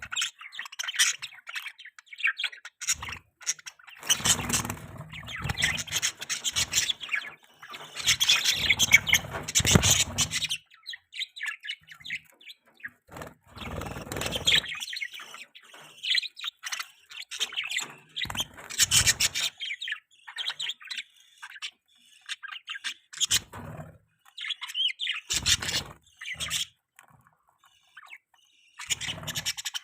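Budgerigars chirping and chattering in irregular bursts, with a louder, denser stretch of chatter in the first third.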